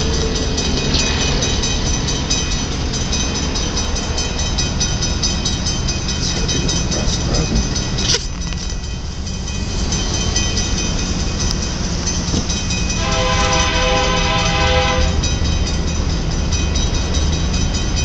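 Diesel freight locomotive horn sounding one blast of about two seconds, about three-quarters of the way through, over a steady low rumble.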